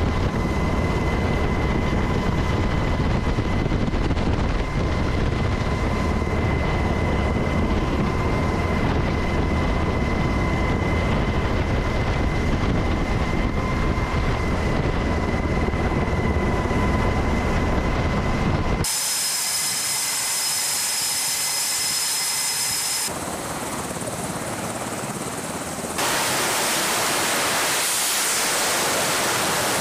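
Aircraft engines running on an aircraft carrier's flight deck: a steady rushing noise with a constant whine, changing abruptly about 19 seconds in to a thinner hiss with high-pitched whining, then about 26 seconds in to a broad, even rush of jet noise.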